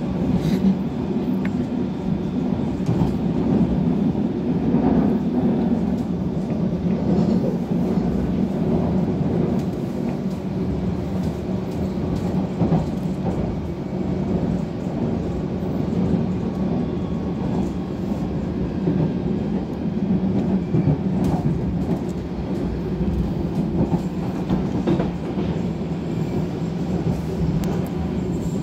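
London Underground District Line train running at speed, heard from inside the carriage: a steady, even rumble of wheels on rail with occasional faint clicks.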